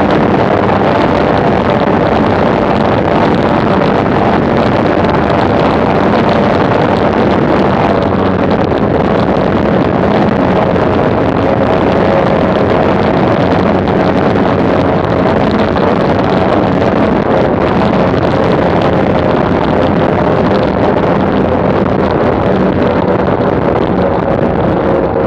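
Twin Mercury OptiMax 300XS V6 two-stroke outboards running at high speed, with wind and spray rushing past the microphone. The engine note eases slightly lower near the end as the boat slows from about 134 to 113 km/h.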